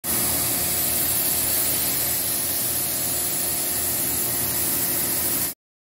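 Vertical CNC lathe running: a steady, even hiss with a low machine hum underneath, cutting off suddenly about five and a half seconds in.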